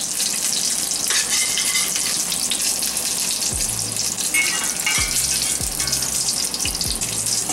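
Cutlets sizzling steadily as they shallow-fry in hot oil in a stainless steel sauté pan. A spatula is lifting them out of the oil near the end.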